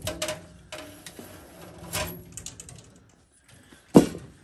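Metal electrical conduit scraping and rattling as it is slid out of a furnace cabinet, with scattered clicks, then a single loud knock about four seconds in.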